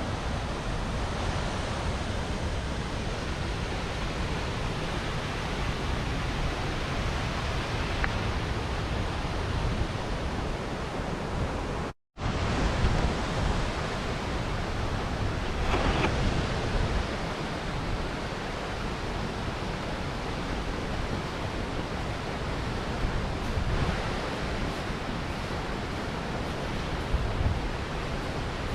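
Water pouring over a small river weir, a steady rush. It breaks off for a moment about twelve seconds in.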